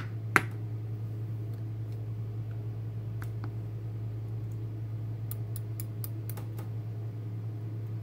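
Small sharp metal clicks and ticks as the key pins of an Assa Twin 6000 lock cylinder are handled with tweezers and set into a wooden pin tray. One louder click comes just after the start, then scattered faint ticks, over a steady low hum.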